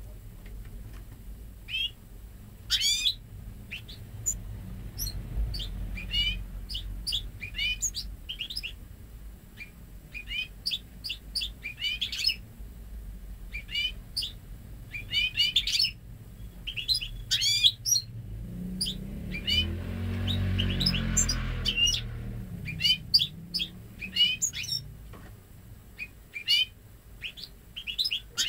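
Ten-month-old goldfinch × canary hybrid singing: quick runs of short chirps and twitters in clusters with brief pauses, all in goldfinch phrasing. About two-thirds of the way through, a low rumble swells and fades under the song.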